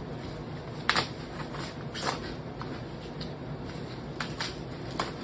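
Packaging being handled and pulled off a new e-bike: short crackles and sharp clicks, the loudest about a second in, then around two seconds, four seconds and near the end, over a steady low room hum.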